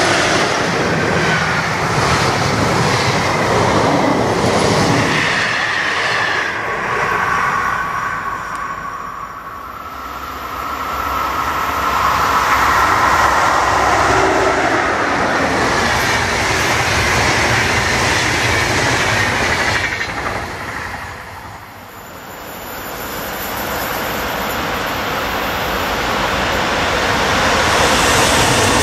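Electric trains passing close by at speed, one after another: an SBB Re 4/4 II locomotive with passenger coaches, then an Re 460 with double-deck coaches, then a container freight train approaching near the end. Each pass is a loud rush of wheels on rails with a high whine over it, and the sound drops away twice between the trains.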